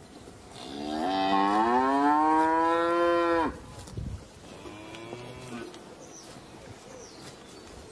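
A cow moos once: a single long call of about three seconds that rises in pitch, holds, then cuts off abruptly. A much fainter, short call follows about five seconds in.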